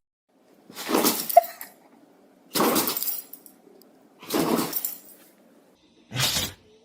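Dog sneezes: four sharp, short bursts of breath through the nose, a little under two seconds apart.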